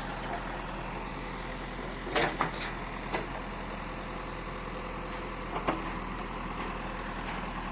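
Construction-site work noise: a steady engine or machine hum with a few sharp knocks, three close together about two to three seconds in and another near six seconds.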